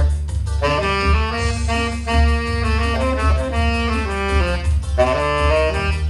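Saxophone playing a joget dance tune in G minor over a backing track with a steady bass line and an even percussion beat; the melody pauses briefly just after the start and again near the end.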